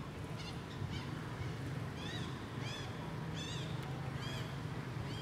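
Baby macaques giving a series of short, high-pitched, arched squeals, one every half-second to second, while they play and wrestle.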